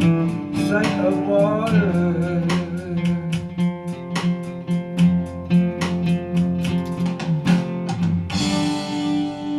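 Acoustic guitar strummed in a steady rhythm, ending the song with a final chord struck about eight seconds in and left to ring out.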